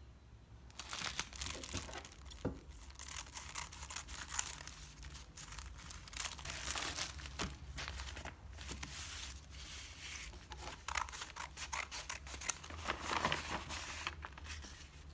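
Crumpled kraft-paper wrapping being opened and handled: irregular crinkling and rustling of stiff paper as a package is unwrapped.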